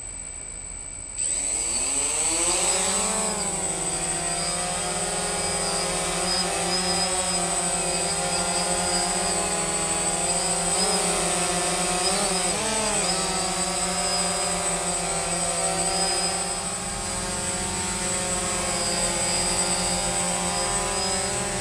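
DJI Phantom FC40 quadcopter's four electric motors and propellers, fitted with new blades and prop guards, spinning up about a second in with a rising whine, then a steady buzzing hum whose pitch wavers up and down as it flies.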